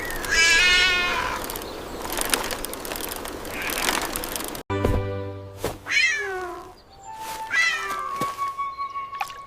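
A cat meows several times. The first half holds one long meow about half a second in, over a steady rasping noise with clicks. After an abrupt cut about halfway through come shorter meows over background music.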